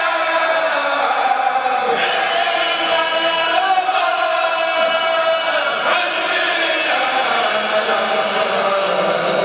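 A Mouride kourel, a group of men, chanting an Arabic khassida in unison without instruments, in long held notes that slide from one pitch to the next.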